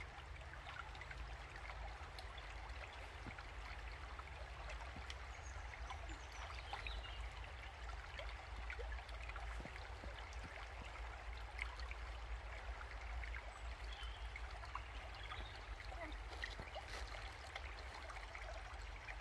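Faint, steady rushing and trickling of a small stream, with a few faint bird chirps.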